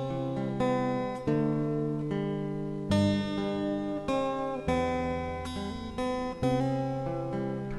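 Acoustic guitar playing an instrumental intro: chords are struck about once a second, and each one rings and fades before the next.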